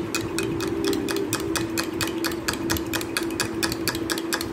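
Spoon beating thick yogurt fast in a glass mug, clinking against the glass in an even rhythm of about six or seven strokes a second, over a steady low hum.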